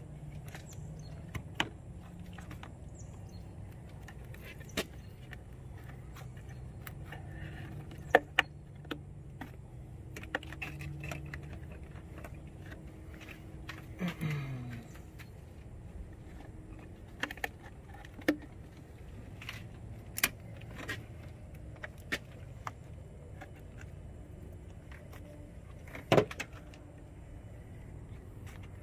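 Scattered plastic clicks and clacks from an ATV's airbox, wiring connectors and clips being unclipped and handled during disassembly, with a few sharper knocks, over a low steady hum.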